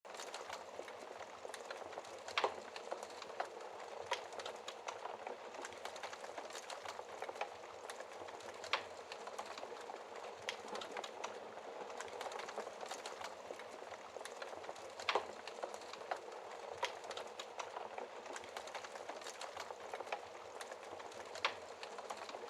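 Wood fire in a fireplace crackling: a steady soft hiss with irregular sharp pops, the loudest about two seconds in and again about fifteen seconds in.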